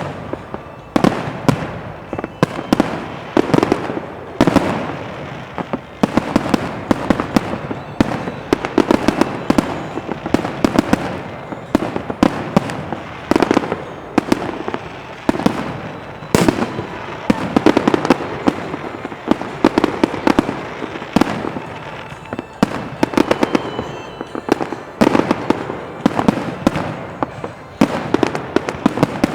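A fireworks display: a continuous barrage of bangs, several a second without a break, with crackling between them.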